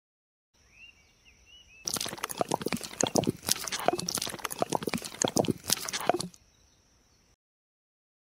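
Wet cement slurry poured from a small metal bowl onto a flat slab, a thick wet splattering and crackling that starts about two seconds in and stops after about four seconds.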